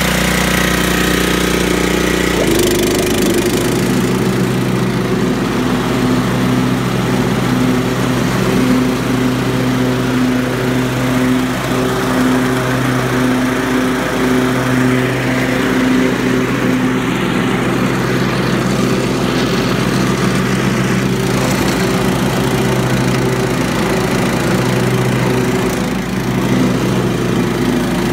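Giant Mow walk-behind mower's engine running steadily on its first run after a deck belt replacement. The engine note changes once about two and a half seconds in, then holds even.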